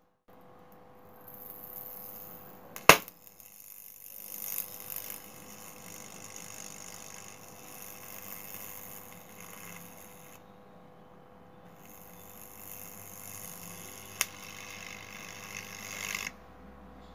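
220 V LED bulb circuit board overloaded with 660 V from a transformer and burning out: a loud sharp bang about three seconds in, then a steady hissing fizz as the board burns and smokes. The fizz stops briefly, returns with another sharp crack, and cuts off suddenly near the end.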